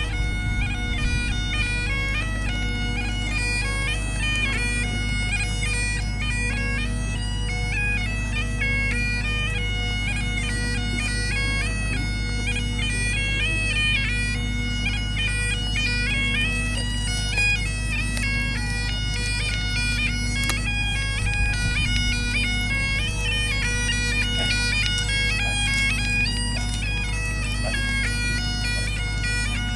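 Great Highland bagpipe played solo: a melody stepping from note to note over the pipes' steady drones, with wind rumbling on the microphone.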